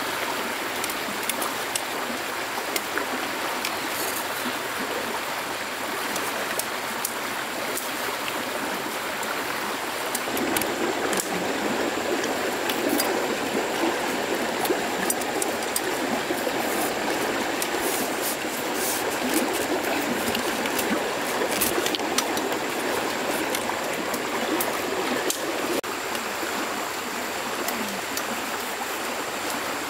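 Running water of a stream: a steady rushing and trickling that gets a little fuller about ten seconds in, with scattered small ticks over it.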